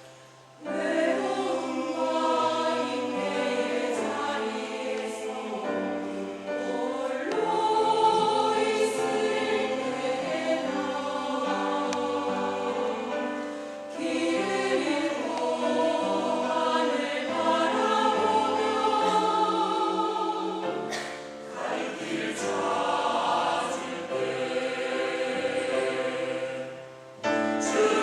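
Church choir singing a sacred anthem in long sustained phrases, with brief pauses between phrases.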